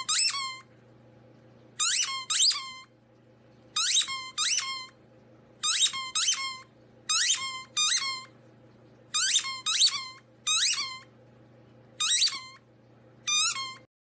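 Repeated short, high-pitched squeaks in groups of two or three, about every two seconds, over a faint steady low hum.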